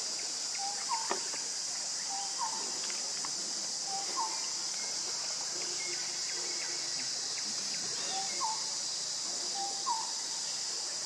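Steady high-pitched drone of insects, with a short two-note call repeated every one and a half to two seconds: a low note, then a note that rises. The calls pause for a few seconds midway.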